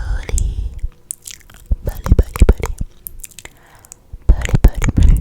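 Close-miked wet mouth sounds for ASMR: clicks and smacks of the lips and tongue. They come in three quick clusters, with short pauses between them.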